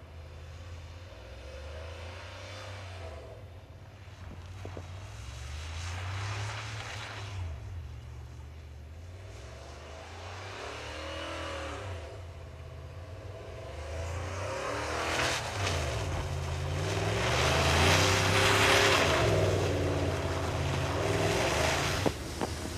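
Chevrolet Tahoe V8 engine revving hard as the wheels spin through deep snow, the revs rising and falling again and again. It is loudest a little past the middle, with a rushing spray of snow, and there is a brief sharp click near the end.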